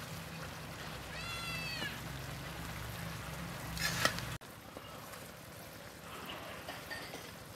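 A cat meows once, a short call that rises then falls, about a second in, over a steady low hum from the wok on the stove. A brief scrape of a ladle in the wok comes just before the hum cuts off abruptly about halfway through.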